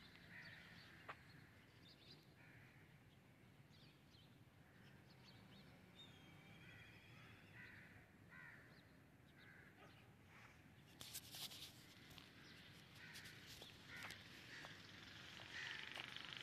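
Faint crows cawing and other small birds calling, with a few faint clicks about eleven seconds in.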